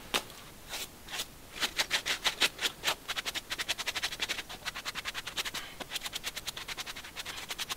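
Stiff brush scrubbing a wet, dirty plush stuffed toy on a tile floor: quick, even scratching strokes, several a second, starting about a second and a half in.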